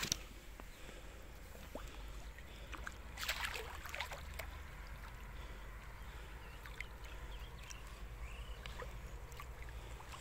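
Landing net with a carp lowered into pond water to release the fish: quiet water sloshing, with a short splash about three seconds in and a few light clicks.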